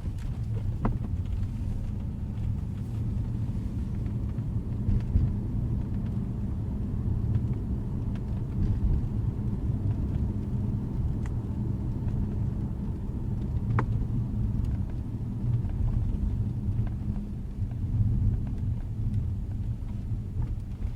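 Steady low rumble of a 2012 Jaguar XJ on the move, with a few faint sharp clicks, the clearest about 14 seconds in.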